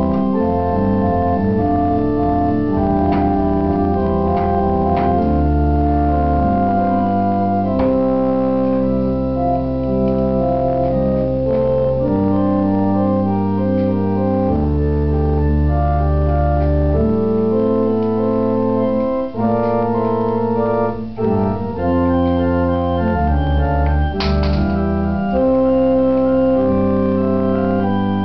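Two-manual organ being played: a melody over sustained chords and long held bass notes, the harmony changing every second or two, with a few short breaks between phrases in the second half.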